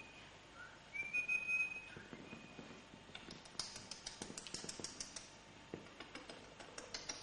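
Havanese puppy whining: a thin, high, steady whine about a second long near the start, then a run of small quick clicks.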